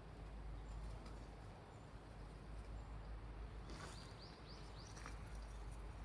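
Faint outdoor quiet with a bird calling once, a quick run of about five rising high notes about two-thirds of the way through, followed by a single click.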